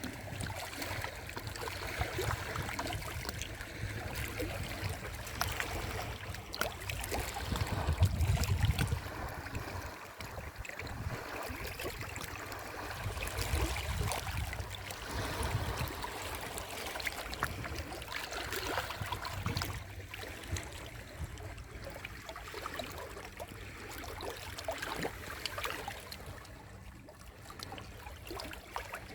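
Sea waves washing in at the shore: a continuous rush and trickle of water that swells every few seconds, the biggest surge about eight seconds in.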